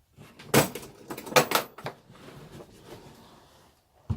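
Hard plastic carry case and packaging being handled: a sharp knock about half a second in, a quick cluster of clatters around a second and a half, then quieter handling noise.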